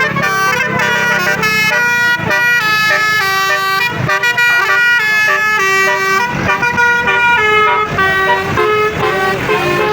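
Indonesian bus 'telolet' multi-tone horn playing a tune: clear horn notes that step quickly from one pitch to the next and keep going without a break.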